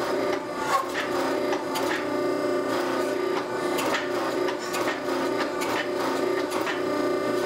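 Forging press running with a steady hum while a hot steel billet is squeezed and turned between its flat dies, with irregular knocks and scrapes of the steel on the dies.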